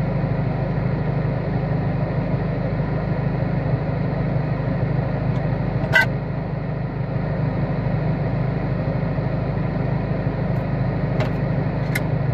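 Car engine idling, a steady low hum heard from inside the cabin. A single sharp click sounds about halfway through, and a few faint ticks come near the end.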